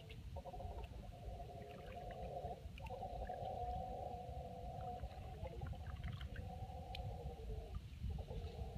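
Mantled howler monkeys howling: long, drawn-out deep roars from rival troops calling against each other in a territorial dispute, held for a few seconds at a time and broken by short pauses.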